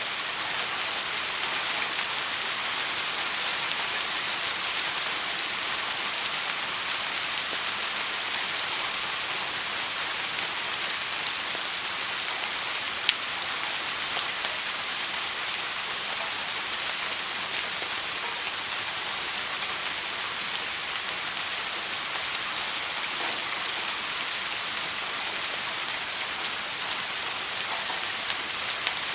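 Steady rain falling on a surface, an even hiss with many fine drop ticks and one sharper drop about halfway through.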